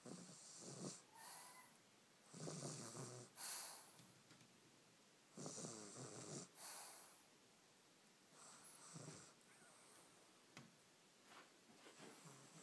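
A toddler snoring in her sleep, with a loud snoring breath in and a short breath out about every three seconds. The breaths turn softer over the last few seconds.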